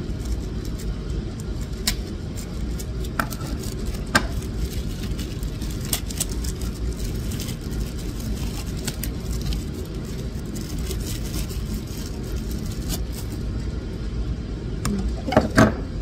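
Plastic wrapping being handled as a small part is unwrapped: scattered light clicks and crinkles, with a few louder knocks near the end, over a steady low rumble.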